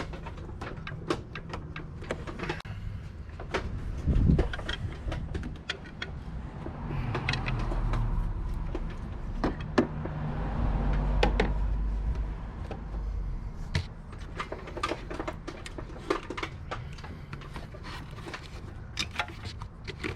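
Alternator being wiggled and pried out of its mounting in the engine bay: scattered metal clicks and knocks, a heavy thump about four seconds in, and a longer low rumbling scrape from about seven to thirteen seconds in.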